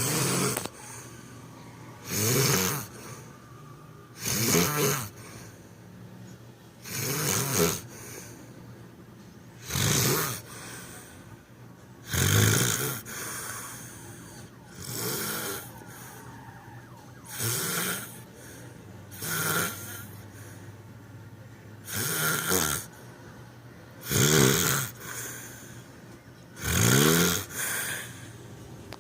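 Snoring in regular breaths, about one snore every two and a half seconds, each sliding up and down in pitch.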